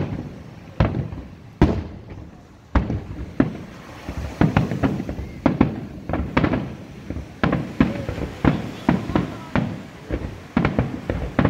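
Aerial fireworks shells bursting, sharp bangs each followed by a short rumble. A few separate bangs come in the first seconds, then a rapid run of two or three bangs a second from about four seconds in.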